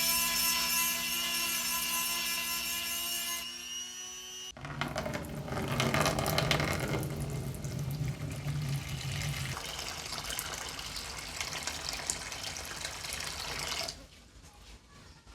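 A small power tool's motor running with a steady whine, which stops abruptly about four and a half seconds in. It is followed by about nine seconds of rough, hissing working noise.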